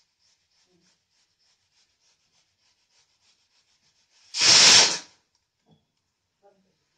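A single loud rubbing rush lasting under a second, about four seconds in: a hand or sleeve brushing against the recording device. Before it there is only faint quick ticking.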